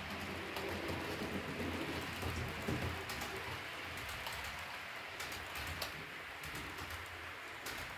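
H0-scale model train coaches rolling over the track: a steady rushing hiss with many small clicks from the wheels, slowly fading as the train passes.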